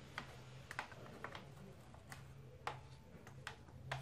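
Faint, irregular clicks and taps of a plastic toothbrush brushing and knocking against the metal panel under a removed laptop keyboard, about eight in all.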